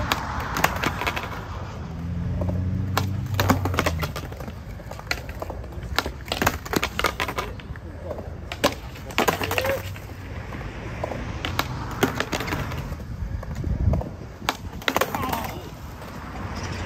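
Skateboard wheels rolling on concrete, then many sharp clacks and slaps of the board hitting the concrete as tricks are tried.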